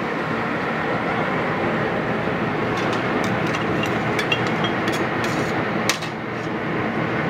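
Light clicks and ticks, scattered about three to six seconds in, as bamboo skewers of chicken and wagyu beef are set down across the metal rails of a robata grill over binchotan charcoal. Under them runs a steady rushing kitchen noise.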